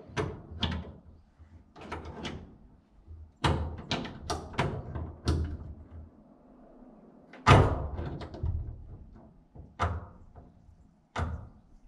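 Irregular metallic clicks and knocks of a hand tool working a brass pipe fitting against the barge's steel hull, coming in short clusters, the loudest about seven and a half seconds in.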